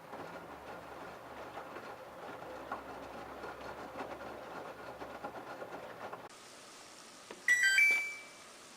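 LG F1222TD direct-drive washing machine running its babycare prewash, a steady churning noise with light clicks, which stops abruptly about six seconds in. A little later there is one loud, short electronic beep that steps up in pitch.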